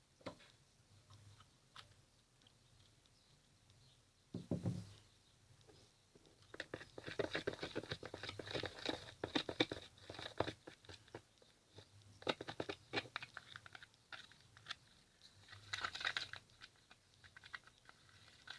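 Sticky homemade slime of glue, talc and shaving cream being mixed in a small pan: three bursts of wet, crackling squelches and clicks, with a single thump a few seconds before the first.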